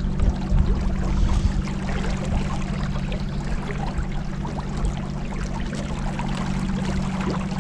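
Boat under way on a river: a steady engine hum beneath water rushing and splashing along the hull.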